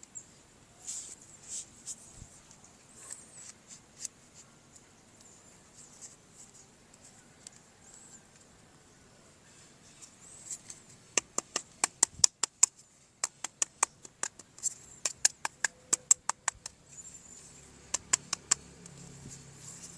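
Soft rustling as a plastic toy and its packaging are handled, then, about halfway through, several runs of sharp rapid clicks, a few each second.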